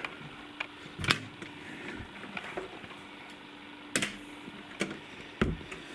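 Camera handling noise: a few sharp, irregular knocks and clicks over a faint steady hum.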